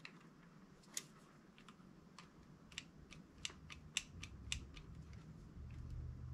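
Light, sharp clicks and ticks of small metal parts and tools being handled in an open airsoft gearbox as it is put back together, irregular and faint, with a low rumble coming in over the last two seconds.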